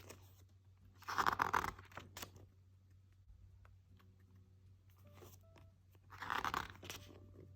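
Two page turns in an album photobook: the paper rustles briefly about a second in and again about six seconds in.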